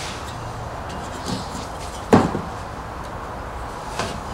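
A steel try square and pencil handled against a board on a wooden workbench: one sharp knock about two seconds in and a lighter tap near the end, over steady background noise.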